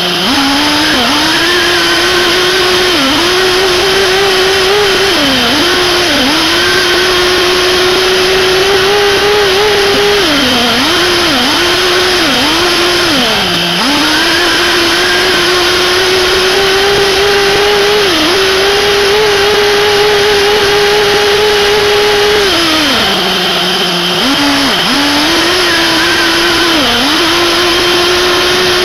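SH PT21-P3 3.48 cc nitro glow engine of a 1/8 RC buggy running at high, near-steady revs, its pitch dropping briefly and climbing again many times as the throttle is eased and reapplied, with a longer drop a little after twenty seconds in.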